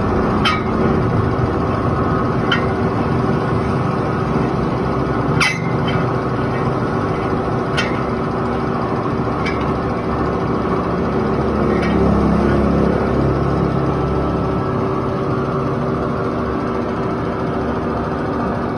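Steady mechanical running noise with a constant low hum, broken by sharp clicks every second or two.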